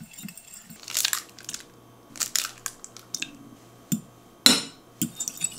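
Metal fork mixing in glass bowls, first stirring dry flour and cornstarch, then beating eggs: scattered soft scrapes and light clicks of the fork against the glass, with one sharper clink about four and a half seconds in.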